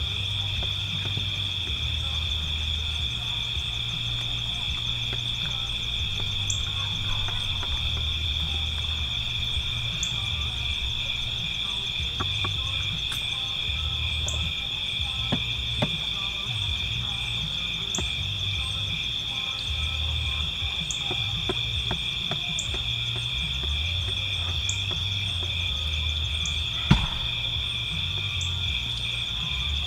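Steady dusk chorus of insects, crickets among them, trilling without a break, with a short high chirp repeating every second or two through most of it. Scattered faint clicks, and one sharp click near the end.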